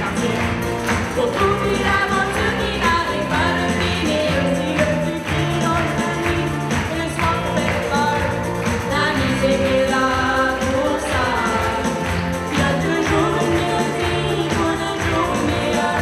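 Live band playing a pop song: female voices singing the melody over strummed ukuleles, guitars and bass, with a steady beat.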